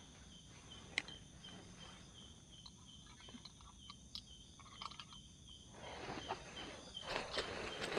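Forest insects chirping steadily at a high pitch, one of them in an even pulsing rhythm, with a single sharp click about a second in. From about six seconds in, rustling and shuffling as someone moves about inside the tent.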